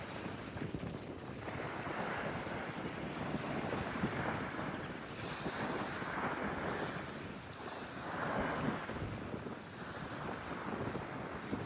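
Sea waves washing in, swelling and easing every few seconds, with wind rumbling on the microphone.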